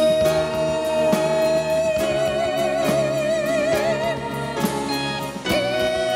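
A male singer holds one long high note, steady at first and then with vibrato, over a live band with drums; the note ends about four seconds in and he takes up another high held note near the end.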